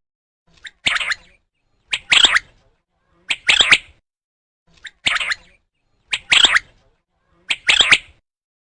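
A bird giving a harsh call over and over, six times, about once every second and a quarter; each call is led by a short faint note.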